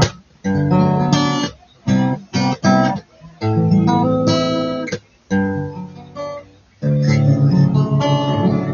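Acoustic guitar strummed, chords struck one after another, some left ringing for a second or more, with short breaks between them.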